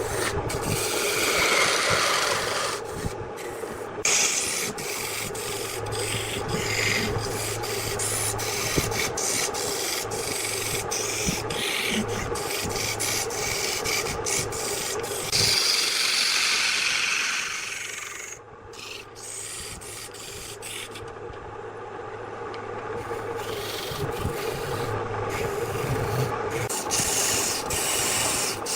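Wood lathe running with a steady hum while a tool or abrasive rubs and rasps against the spinning wood. The rasping eases off for a few seconds about two-thirds of the way through.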